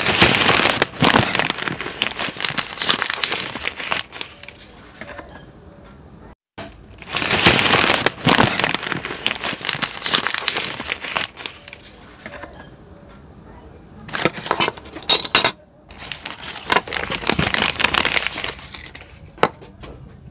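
Newspaper crinkling and rustling in bursts as miniature toy kitchen items are unwrapped, with light clinks of small steel and glass toy utensils being handled.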